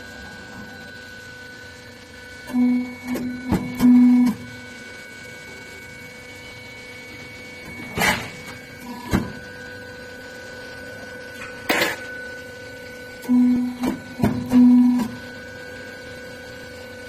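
Roof ridge forming machine running in a repeating work cycle: a steady mechanical hum, a louder motor whine at about 3 s and again at about 13–15 s, and two sharp metallic clanks at about 8 s and 12 s.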